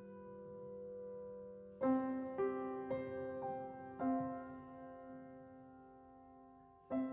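Slow, gentle background piano music. Single notes and chords are struck and left to ring out, with a long fade before a new chord near the end.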